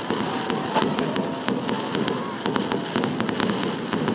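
Aerial fireworks display: a dense run of sharp crackles and pops from glitter shells bursting overhead, over a steady rumble of explosions.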